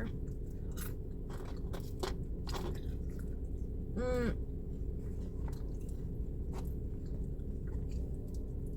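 A person chewing and biting food close to the microphone, with scattered short sharp clicks of mouth sounds. A brief hummed 'mm' comes about four seconds in.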